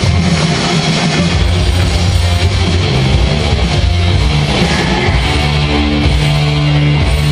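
Loud rock music with electric guitar, steady and continuous.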